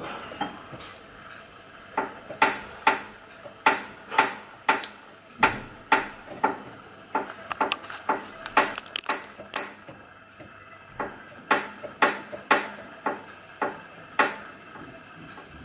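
Digital piano's highest keys pressed one at a time by a toddler: uneven single high notes that ring briefly, with a short break partway through. The notes stop a little before the end.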